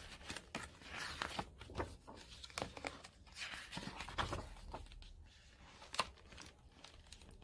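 Pages of a hardcover picture book being turned and handled: soft paper rustling with scattered light clicks, and a sharper tap about six seconds in.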